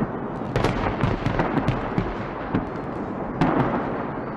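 Aerial fireworks shells bursting in quick succession: an irregular run of sharp bangs and crackles over a steady rumble, with a loud cluster of bangs near the end.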